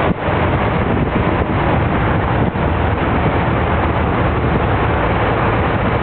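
Jeepney's engine and road noise while riding at speed, a steady loud rumble with wind on the microphone.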